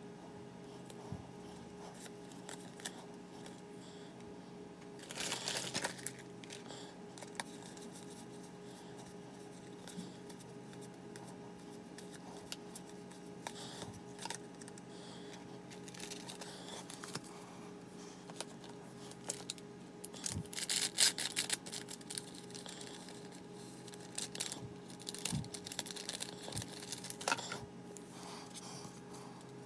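Pokémon trading cards being handled, sliding against each other and laid down on plastic, with bursts of crinkling and rustling about five seconds in and again around twenty seconds in, over a faint steady hum.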